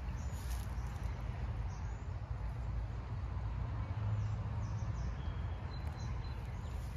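Outdoor ambience by a lake: a steady low rumble with faint, short bird chirps now and then.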